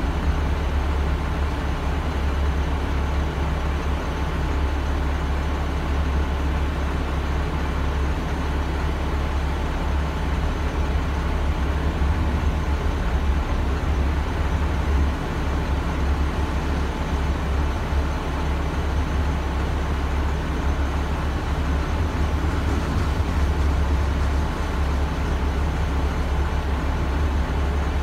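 A CSX freight train's hopper and tank cars roll steadily past a grade crossing. The train is heard from inside a stopped vehicle's cab, over a strong low engine hum.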